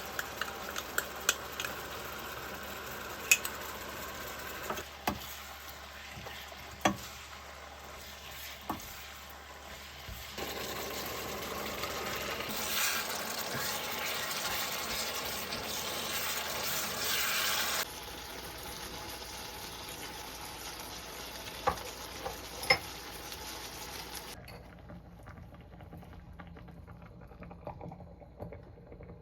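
Food sizzling in a pan as it is stirred, with sharp clicks and knocks of a utensil against the pan. The sizzle changes abruptly in level several times, and is quieter near the end.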